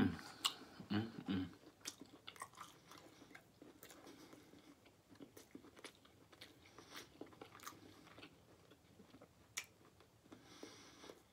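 Close-miked chewing of smoked turkey leg meat: soft wet mouth clicks and smacks, with a sharp bite or smack right at the start and a short low hummed 'mm' about a second in.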